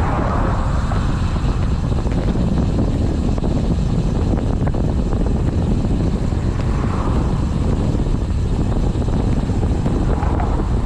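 Steady low rumble of wind buffeting the microphone, with an engine droning underneath that swells a couple of times.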